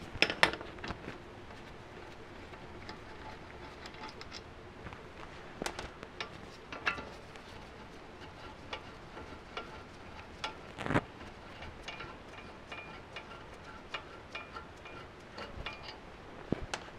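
Occasional sharp metallic clicks and knocks as a Toyota Camry front brake caliper is handled and worked loose from its pads and mounting bracket, with quiet handling in between.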